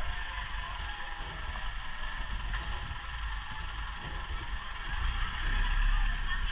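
Street noise with a vehicle engine's low rumble, growing stronger near the end.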